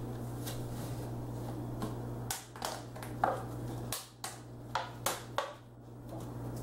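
About seven light clicks and taps spread over three seconds as RAM modules are handled and readied for their slots, over a steady low hum.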